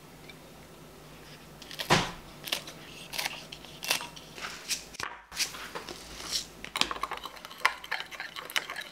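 Kitchen scissors snipping green onion over a glass bowl of sauce, then a metal spoon clinking against the glass bowl as the sauce is stirred: a run of sharp, irregular clicks and clinks that starts about two seconds in.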